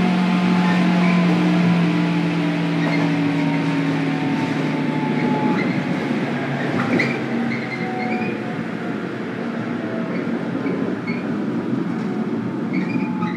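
Running noise inside a JR 103 series electric railcar, KuMoHa 103-1514: motor and gear whine falling slowly in pitch, a sign the train is slowing, over a steady rumble of wheels on track. From about halfway there are short high squeals.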